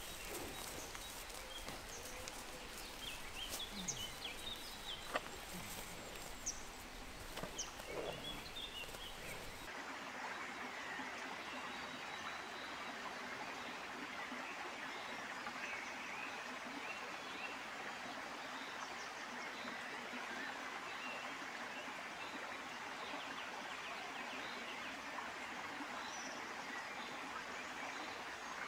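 Rural outdoor ambience: small birds chirping, with a few soft knocks, over about the first ten seconds. Then, after an abrupt change, a steady even hiss.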